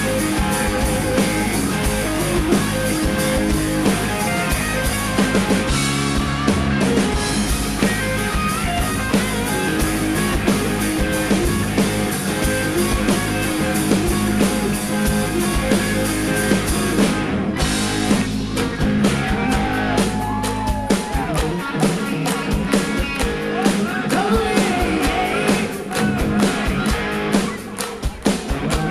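A rock cover band playing live through a PA: electric and bass guitars, drum kit and singing. About two-thirds of the way through the bass drops away, leaving a sharp, even beat under the voice.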